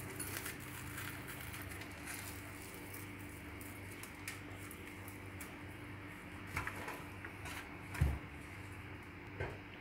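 Salted codfish being handled and its skin pulled off by hand: faint soft crackling and squishing, with a few small clicks. There is a dull thump about eight seconds in as the piece is set down in the stainless steel sink, over a steady low hum.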